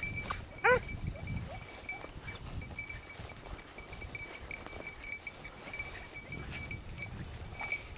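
Beagle giving one short bay about a second in, then a faint low rumble with a thin steady high tone underneath.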